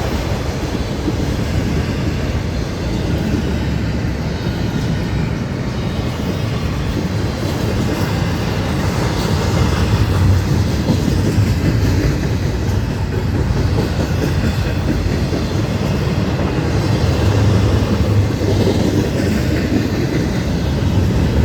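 Long Florida East Coast Railway freight train of empty intermodal cars rolling steadily past, loud and close, its steel wheels running over the rails.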